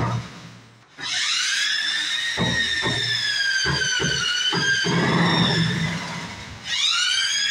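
Handheld electric drill running in two bursts: the motor whine rises as it spins up about a second in, wavers and dips a little under load, stops briefly past six seconds, then spins up again near the end.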